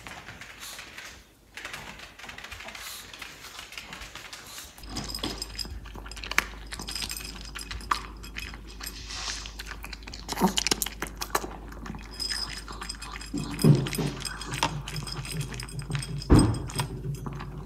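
Maltese dog eating breakfast from a ceramic bowl: repeated crunching and clicks of food and bowl, starting about five seconds in, with a few louder knocks near the end. Before that, only light scattered knocks.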